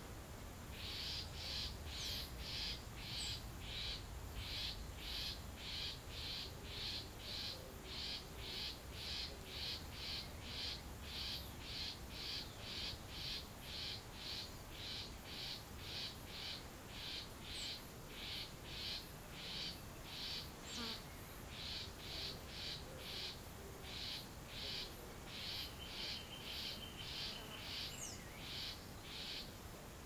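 A steady train of raspy calls repeating about twice a second. Over it, a few short, very high falling chirps from birds, and near the end a steady whistle about two seconds long.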